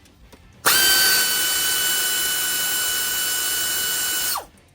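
Cordless power tool motor spinning out a loosened T55 Torx caliper bolt: a loud, steady whine that starts suddenly about a second in and winds down in pitch just before the end.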